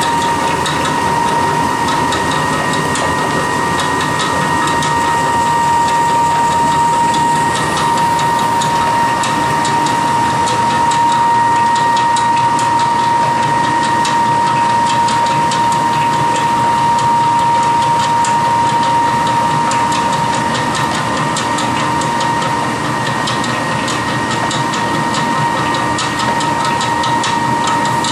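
miniPelleter 18 pellet mill running under load, pressing fish-feed mash through an 8 mm die: a steady high mechanical whine with a rapid, dense ticking over it as fresh pellets pour into a plastic bucket.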